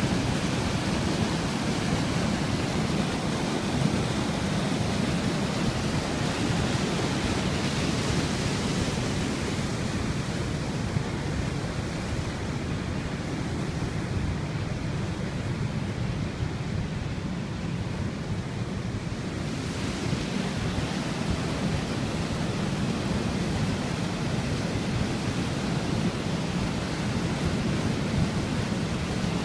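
Brown floodwater pouring over a river weir and churning in the white water below it: a steady rush. The rush turns duller for about ten seconds in the middle, then comes back brighter.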